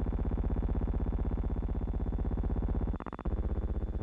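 A steady, low buzzing drone with a fast, even pulse, broken off for a moment about three seconds in, where the film cuts to a new shot.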